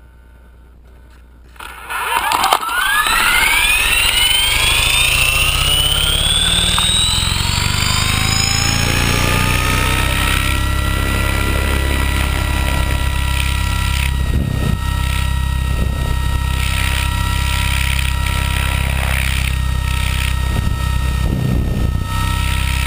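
Radio-controlled helicopter heard from on board, starting up: the motor comes on suddenly about a second and a half in, its whine climbing in pitch for several seconds as the rotor spools up, then holding a steady drone at flying speed as it lifts off and climbs.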